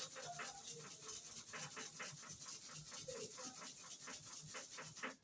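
Hair-clipper blade rubbed rapidly back and forth on an oiled sharpening stone: a quick, even scraping rhythm of about five or six strokes a second.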